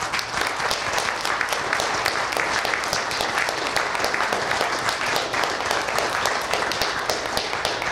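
Audience applauding, with many hands clapping at an even level.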